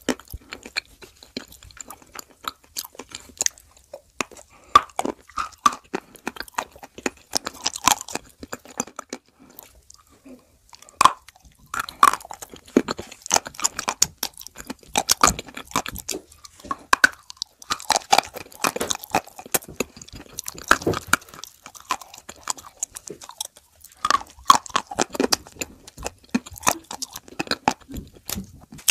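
Close-miked crunching and chewing of dry Turkestan clay chunks coated in wet clay paste: a long run of sharp, irregular crunches broken by short pauses.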